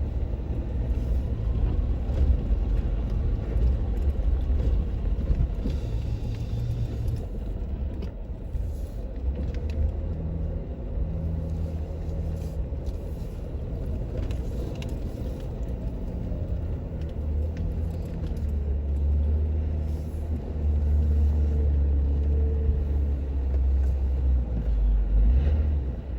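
Jeep Wrangler JK running steadily while driving up a steep dirt trail, a continuous low drone with rumble.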